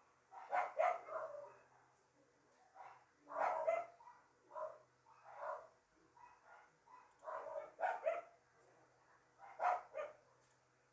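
Dogs barking in short bursts, often two or three barks close together, with pauses of a second or two between the groups.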